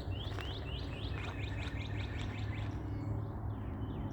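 A songbird singing a rapid series of short downslurred whistled notes, about four or five a second, pausing briefly about three seconds in and starting again near the end, over a steady low hum.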